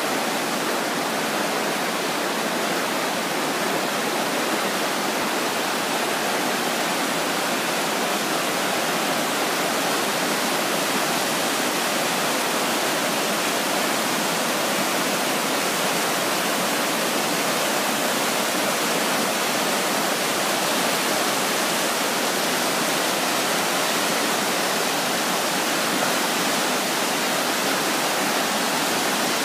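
A Himalayan mountain river rushing steadily: an even wash of water noise with little deep rumble, holding the same level throughout.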